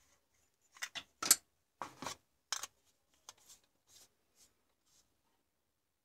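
Compact fluorescent bulbs knocking and clicking against each other as they are handled in a cardboard box: a quick run of sharp clicks, the loudest just over a second in, then a few fainter taps.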